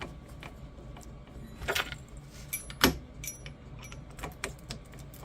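Scattered metallic clinks and knocks of tools being picked up and handled while drills are switched, the loudest a sharp knock about three seconds in.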